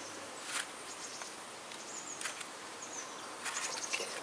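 A few short rustling clicks of a gloved hand handling the fuel injector wiring harness and pulling off an injector's plastic connector, about three times. Behind them is steady outdoor background hiss with faint bird chirps.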